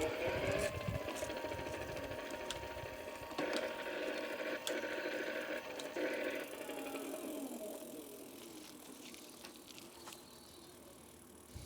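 Swytch e-bike hub motor spinning the wheel with no load, a steady electric whine. It runs louder for a few seconds in the middle, then falls in pitch as the motor stops driving and the wheel winds down, with a few sharp clicks.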